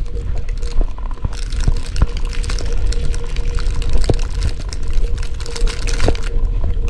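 Gusting snowstorm wind buffeting the phone's microphone: a loud, low, uneven rush with scattered short clicks.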